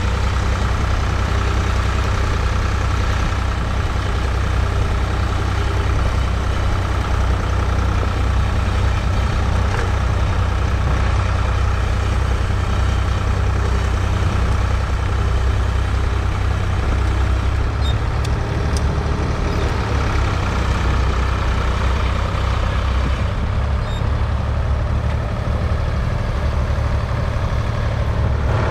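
Ford 3000's 2.9-litre three-cylinder diesel engine running steadily at close range.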